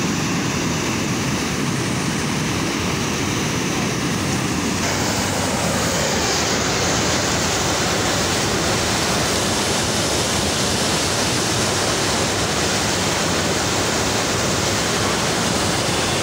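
Water pouring over a concrete drop in a canal and churning into foaming whitewater: a steady rush that turns hissier about five seconds in.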